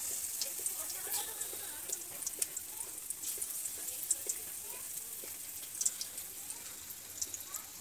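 Battered chicken pakoras deep-frying in hot oil in a kadai: a steady sizzle with scattered crackles and pops.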